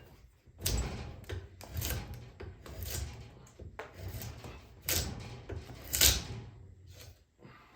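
Draw knife shaving a juniper axe-handle blank: a series of scraping cuts through the wood, about one stroke a second, two of them louder late on.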